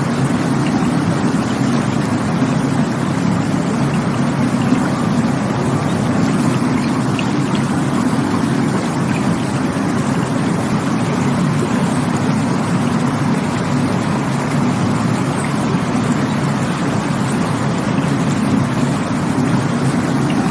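Steady rushing water, an even, unbroken rush with no breaks or distinct splashes.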